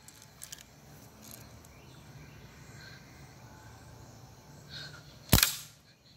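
A pump BB gun fires once near the end, a single sharp crack with a short tail, over faint outdoor background noise.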